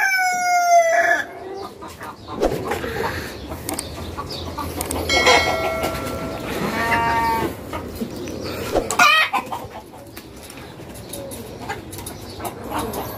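Chickens of mixed breeds clucking in a coop: the tail of a rooster's crow falls away in the first second, then drawn-out hen calls come around five to seven seconds in, over scattered short clicks.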